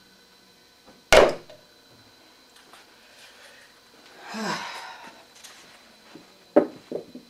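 A ping-pong ball in play during a trick shot. About a second in there is one loud, sharp knock. Near the end come three quick light clicks, each closer to the last, like a ping-pong ball bouncing on a hard surface. A soft breathy rush of noise sits in the middle.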